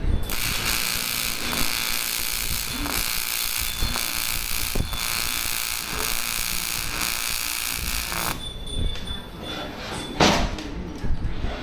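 AC TIG welding arc on aluminium: a steady buzzing hiss that starts just after the opening and cuts off sharply about eight seconds in as the arc is broken. A single sharp metallic knock follows about two seconds later.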